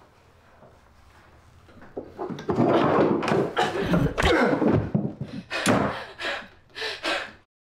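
Sounds of a physical struggle: scuffling with thuds and bumps that start about two seconds in, then several sharp knocks near the end before it cuts off suddenly.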